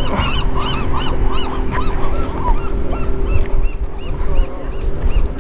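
A flock of birds calling, many short notes that rise and fall in pitch and overlap, thinning out after about three seconds, over a steady low hum.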